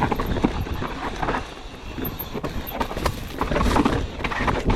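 Mountain bike descending a rough, rocky trail: tyres rolling over dirt and rock, with repeated knocks and rattles from the bike over bumps.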